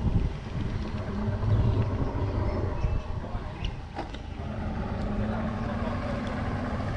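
Pick-up truck towing a boat on its trailer along the road: a steady low rumble of engine and road travel, with a faint click about four seconds in.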